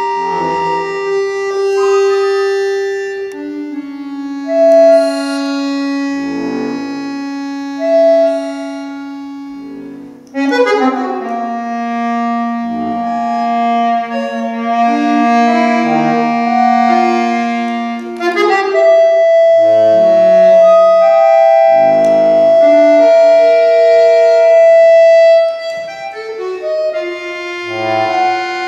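Solo accordion playing a contemporary concert piece: sustained chords and clusters broken by sharp accented attacks, with a long, loud held chord in the second half that breaks off near the end.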